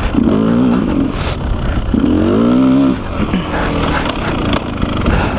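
Two-stroke enduro dirt bike engine running under riding load, with two surges of revs about two seconds apart, each rising and falling in pitch. The engine runs lower between the surges.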